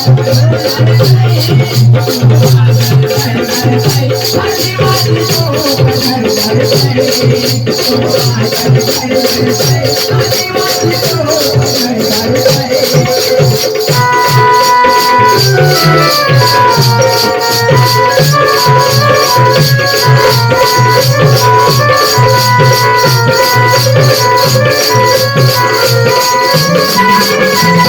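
Instrumental Adivasi dance-troupe music: a driving drum beat under a fast, steady rattling shaker-like rhythm. About halfway through, a high melody of held notes moving in steps comes in.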